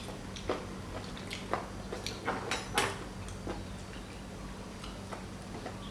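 Light, irregular clicks and taps of utensils against dishes, a few a second, over a faint steady electrical hum.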